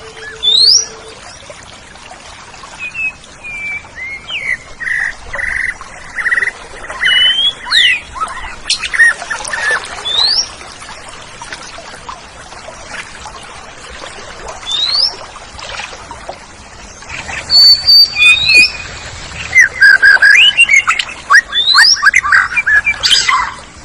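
Oriental magpie-robin (kacer) singing a varied song of clear rising whistles and repeated notes, turning into a loud run of fast chirps in the last third.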